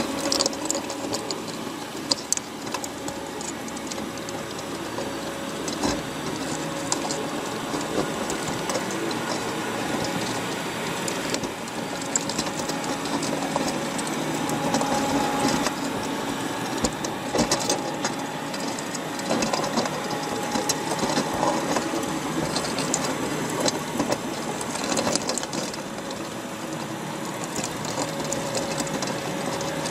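Underwater sound inside a crab trap: a steady mechanical hum with a few faint held tones, and many small clicks and crackles throughout.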